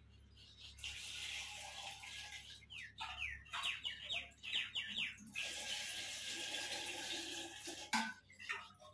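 Buttermilk being scooped from a clay pot with a steel cup and poured through a strainer into a steel pot: liquid pouring and splashing in two stretches, with a sharp clink of the cup near the end.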